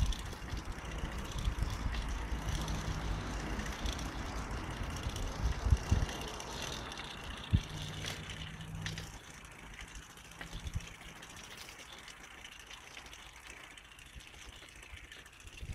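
A car engine running at low revs nearby, a steady low hum, with low rumble and a few thumps on the microphone. It fades out about ten seconds in.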